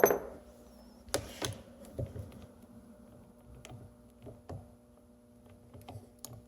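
Scattered light clicks and knocks of sockets being handled and swapped on a cordless impact wrench, with a sharper knock at the start; the wrench is not running.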